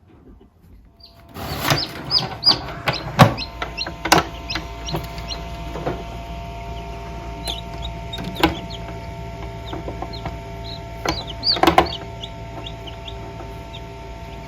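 Newly hatched chicks peeping, many short high chirps, over a steady mechanical hum that starts about a second in. Several sharp knocks and clatters come in among them, the loudest around the middle and again near the end.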